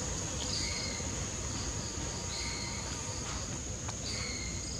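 Steady high-pitched insect drone in forest trees, with short, higher chirping notes recurring every second or two.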